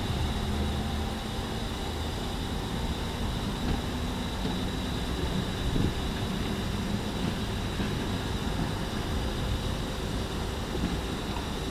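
Steady outdoor rumble of distant city traffic and wind, with the faint hum and rolling of a Tatra T3 tram creeping slowly along a curved track.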